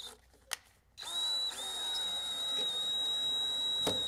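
Power drill, briefly triggered at the start, then running steadily from about a second in with a high whine. A couple of sharp clicks come near the end.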